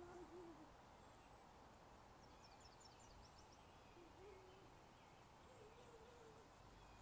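Near silence with three faint, low, wavering animal calls, near the start, about four seconds in and about six seconds in, and a short run of faint high chirps in between.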